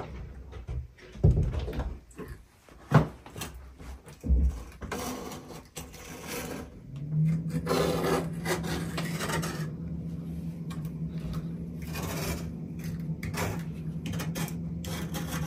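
Hand scraping and rubbing, with a few sharp knocks in the first five seconds. A steady low hum comes in about seven seconds in.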